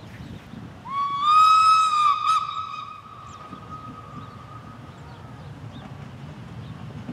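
Locomotive whistle on an approaching train: one long blast starting about a second in that slides up slightly onto its note, a quick break and short second toot, then the tone carries on weaker and fades over a few seconds. Low wind rumble underneath.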